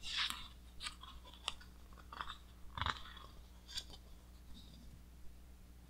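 Pages of a large hardcover art book being turned by hand: a series of short paper rustles and flaps, about six of them, fading out over the last couple of seconds.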